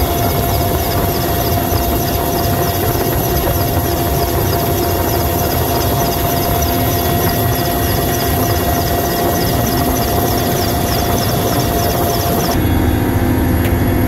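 Mi-8MTV-1 helicopter's turbine engines and rotor running steadily in flight: a constant whine with a quick regular pulsing above it. About twelve and a half seconds in the sound changes abruptly, the high whine and pulsing dropping away and a deeper drone taking over.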